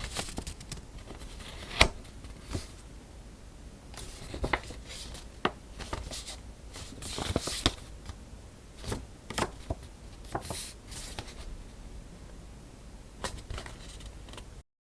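Paper being handled while making a folded envelope: scattered rustles, slides and light taps, with one sharp tap about two seconds in. The sound cuts off shortly before the end.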